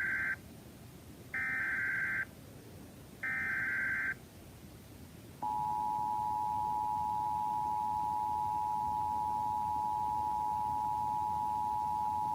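Emergency Alert System SAME header: the tail of one burst of buzzy digital data tones, then two more bursts about a second long with short gaps between. About five seconds in, the EAS attention signal follows: a steady two-tone alert at 853 and 960 Hz, marking the start of an emergency alert broadcast.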